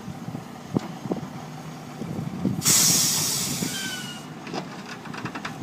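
Heavy machinery rumbling with scattered knocks. About two and a half seconds in, a loud hiss starts suddenly and fades over about a second and a half, followed by light rattling clicks.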